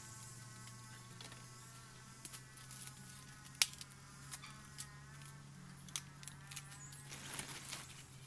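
Dry sticks snapping and rustling as they are broken by hand and gathered for firewood, with scattered sharp cracks, the loudest a crisp snap about three and a half seconds in, over a steady buzzing drone.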